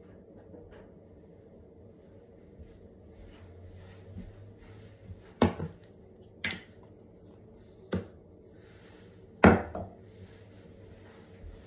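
Plastic cosmetic bottles and tubes being picked up and set down on a bathroom countertop: four sharp knocks starting about five seconds in, spaced a second or so apart, the last the loudest, over a faint low hum.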